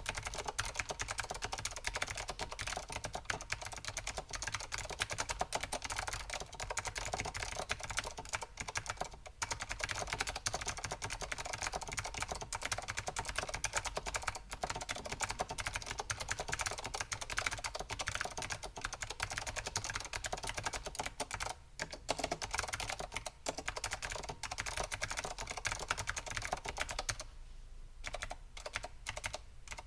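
Fast continuous typing on a Leading Edge DC-2014 keyboard with clicky blue Alps switches and doubleshot ABS keycaps: rapid sharp clicks, thinning out to a few scattered keystrokes near the end.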